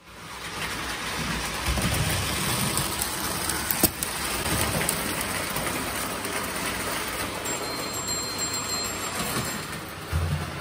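Prewar Lionel electric toy train running on three-rail tinplate track: a steady rattling rumble of wheels and motor, with one sharp click about four seconds in.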